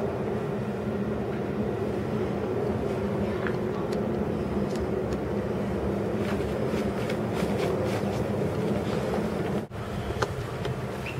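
Steady low rumble and hum of a running vehicle, which drops out for an instant near the end.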